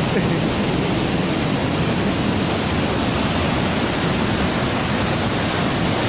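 Samandere Waterfall and its whitewater stream rushing through a rocky gorge: a steady, even roar of falling and churning water.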